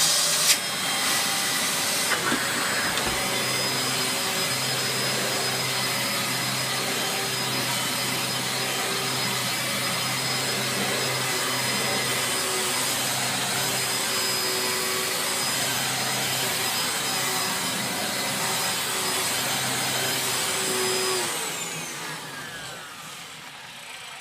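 Dyson DC04 upright vacuum cleaner running steadily, its belt-driven brush roll a little noisy. About three quarters of the way through it is switched off and winds down with a falling whine.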